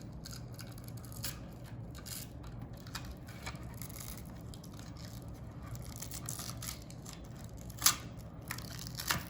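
Fabric hand strap being worked and pulled through a plastic loop on a tablet's expansion back: light scraping and rubbing with small ticks, and two sharper clicks near the end.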